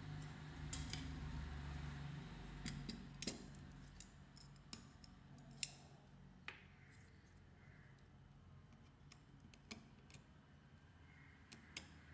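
Light metallic clicks and taps from handling a phone circuit board and setting it into a spring-loaded metal PCB holder, about a dozen separate clicks with the loudest a little past halfway, over a faint low hum in the first few seconds.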